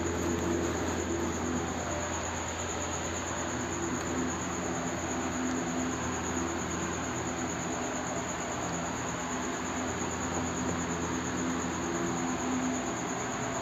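Steady room background: an even hiss with a continuous high-pitched whine and a low hum, with no distinct strokes or knocks standing out.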